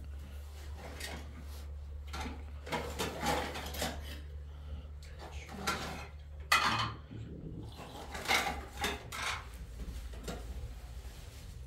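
Hard objects clattering and knocking at irregular intervals, in the way pots and dishes sound when handled, over a steady low hum.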